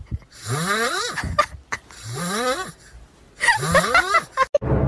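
A sleeping cat snoring: three long snores about a second and a half apart, each rising in pitch through the breath.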